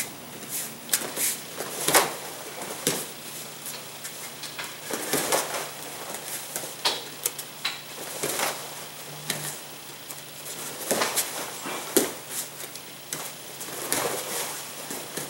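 Bare feet slapping and pivoting on training mats, martial arts uniforms snapping, and kicks thudding against a blocking arm as a roundhouse kick and spinning back kick counter are repeated: a series of irregular sharp slaps and thuds, the loudest about two seconds in and again about twelve seconds in.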